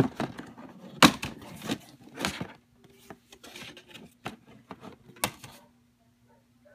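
Plastic two-disc DVD case being opened and handled: a series of sharp clicks and clacks from the case and its hinged inner disc tray, the loudest about a second in, with softer rubbing between them.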